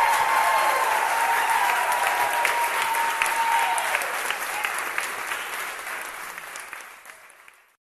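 Audience applauding after a song, the clapping fading out near the end.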